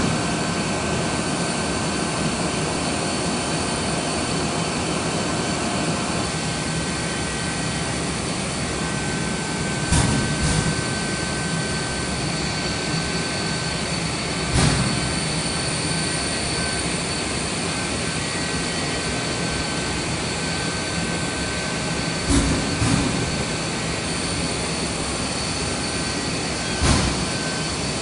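Mitsubishi laser PCB drilling machine running: a steady whirring hum with thin high whines over it, broken by a sharp clunk about every four to eight seconds.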